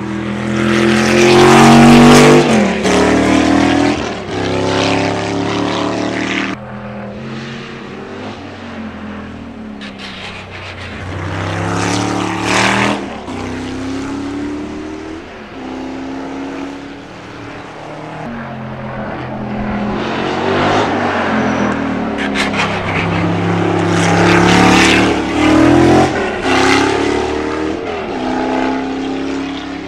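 De Tomaso Pantera race car's Ford 351 Cleveland V8 passing close by, loudest about two seconds in. It then pulls away around the circuit, its engine note rising and dropping again and again as it shifts through the gears.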